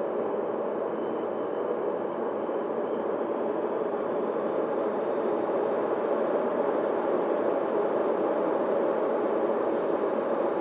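Steady rush of wind and the electric motor and propeller of an E-flite Opterra flying wing in flight, heard from its onboard camera, growing slowly louder.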